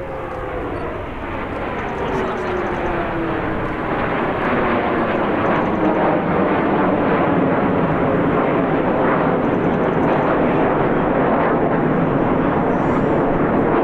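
Jet noise from a formation of CT-114 Tutor trainers, each powered by a single J85 turbojet. It grows louder over the first few seconds and then holds steady, with a whine that falls in pitch as the formation passes.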